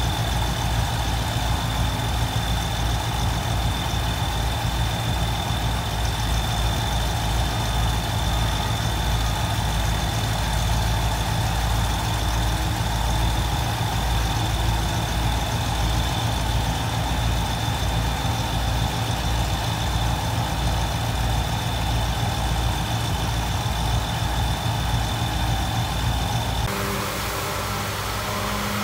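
Heavy diesel engines of an excavator and a sand-dredging barge running steadily, with a faint high-pitched whine over the low drone. Near the end the sound changes abruptly to a different engine drone.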